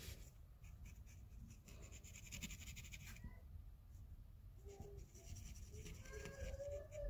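Faint scratchy strokes of a Copic marker's broad nib rubbing across a fabric tote bag, densest in the first three seconds. Near the end a cat meows in a long drawn-out call.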